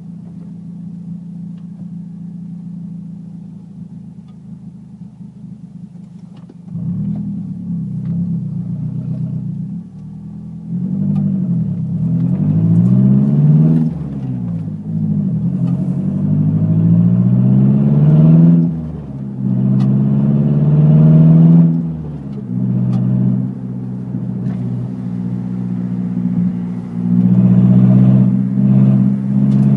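Mazdaspeed3's turbocharged 2.3-litre four-cylinder running on an open downpipe with no resonator or mufflers. It idles steadily at first, then is revved several times, the pitch rising and falling back with each blip, before settling to a louder, steady run near the end.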